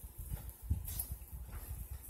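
Pan of water with corn on the cob boiling hard on a gas stove: irregular low bubbling and knocking.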